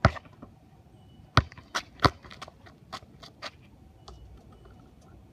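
Basketball bouncing on an asphalt court as it is dribbled in for a layup. Three hard bounces come in the first two seconds, then a string of lighter knocks.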